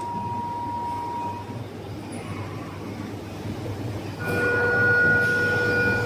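A 1988 Bobst folder-gluer box machine running, a steady train-like mechanical rumble with a thin high whine. About four seconds in, a louder steady tone with several pitches sets in and holds.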